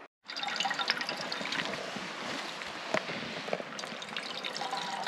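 Water trickling from a hydration bladder's drinking hose into a Jetboil cup, a steady fill with small splashes.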